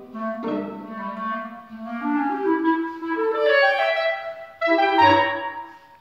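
Clarinets playing held, overlapping notes in several parts, the lines stepping upward in pitch, in phrases that break off and start again about half a second and about four and a half seconds in.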